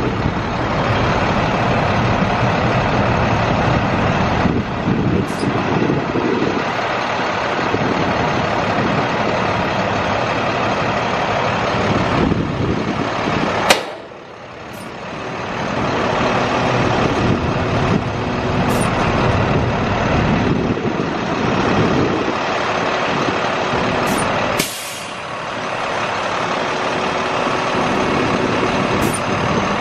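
International DT466 7.2 L straight-six turbo diesel of a 2005 International 4300 truck running steadily. About halfway through, a short sharp sound is followed by a sudden drop in engine sound that builds back over a few seconds; a smaller drop comes near three quarters through.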